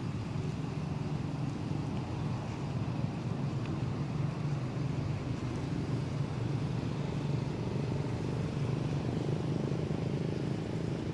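Steady low rumble of background noise at an even level, with no distinct events.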